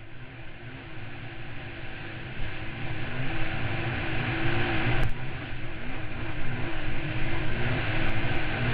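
Dual-sport motorcycle engine riding along a dirt trail, starting quiet and then getting louder. Its pitch rises and falls as the throttle is worked, with a sharp knock about five seconds in.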